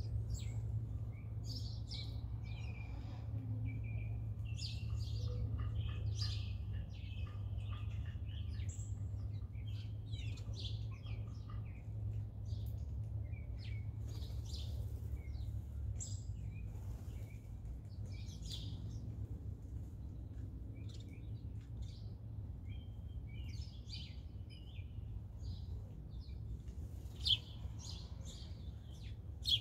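Wild birds chirping and calling again and again, many short calls, over a steady low hum. A sharp click sounds near the end.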